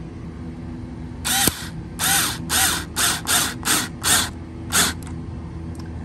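Power drill driving a screw in short trigger pulses: about eight quick whirs over some four seconds, starting about a second in, each rising and falling in pitch.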